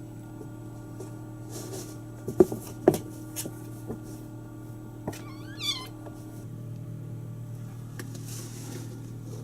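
A kitten mewing once, a short wavering high-pitched call about five seconds in. A few sharp knocks and thumps come before it, the two loudest about two and a half and three seconds in, over a steady low hum.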